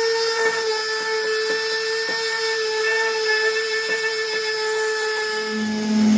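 Electric random orbital sander running steadily against the painted aluminium boat hull, a pitched whine with faint irregular scuffs. Near the end it gives way to the lower hum of a cordless drill spinning a wire wheel.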